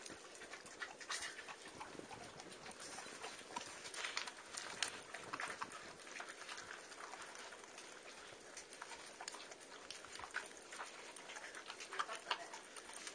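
A dog eating soft cake off a plate on the floor: irregular wet licking, lapping and chewing smacks, with small clicks as its mouth works the food.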